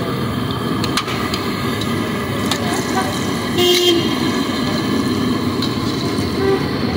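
Busy street ambience: steady traffic rumble with voices in it, and a short vehicle horn toot about halfway through.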